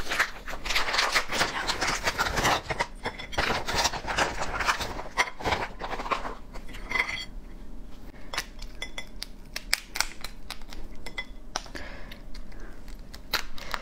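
A plastic bag of soy-marinated crab crinkling and rustling as the crab is pulled out, for about the first six seconds. Then a few sharp clicks and taps of the crab against a ceramic plate, and soft handling noise as the crab is picked up and prised apart.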